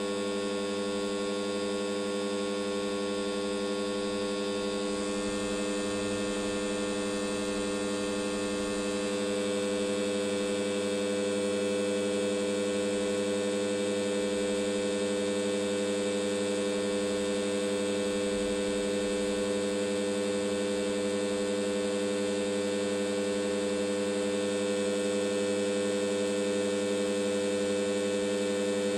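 Steady mains hum from the variac and isolation transformers as the variac is turned up toward 220 V, growing slightly louder partway through.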